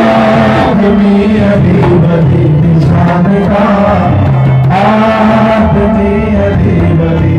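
Men singing a Punjabi devotional qaseeda into microphones in long, held, wavering lines, accompanied by harmonium, dholak and tabla.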